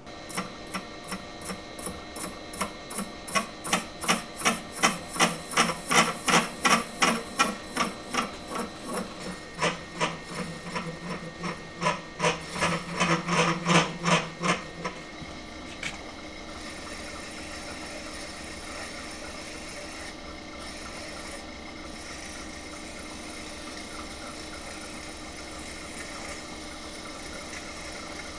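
A brazed flat-belt step pulley spinning in a milling machine spindle, turned true against a stationary cutting tool: a rhythmic scraping cut pulsing about two and a half times a second for roughly the first fifteen seconds. After that the cutting stops and the machine runs on with a steady hum.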